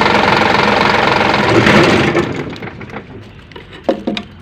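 Toyota 4-ton forklift engine running with a fast, even mechanical rhythm, then dying away about two seconds in as it is switched off. Two sharp clicks near the end.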